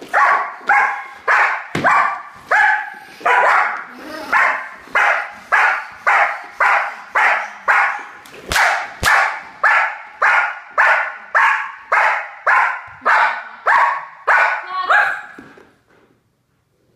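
German Shepherd barking hard and steadily at a helper agitating with a bite pillow, about two barks a second, the drive barking of protection bitework. Two sharp cracks come close together about halfway through, and the barking stops shortly before the end.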